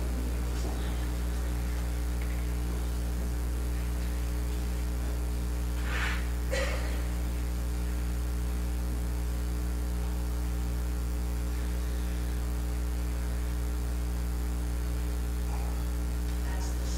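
Steady electrical mains hum, a low buzz with a ladder of overtones, dominating the recording's sound. Two brief faint sounds come about six seconds in.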